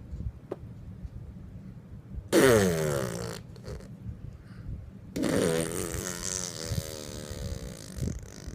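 Two silly buzzing vocal noises: a short one about two seconds in that slides down in pitch, then a longer, wavering one from about five seconds in.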